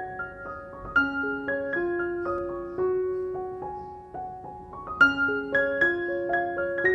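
Background instrumental music: a piano-like melody of single struck notes that ring on over a few held lower notes.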